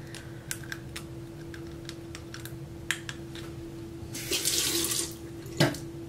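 Bathroom sink tap running with a steady hum, and light clicks of dental floss snapping between teeth. About four seconds in, the water rushes louder for about a second.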